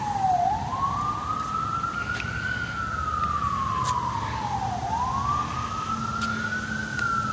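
Emergency vehicle siren on a slow wail: a single tone rising and falling over and over, each full rise and fall taking about four and a half seconds.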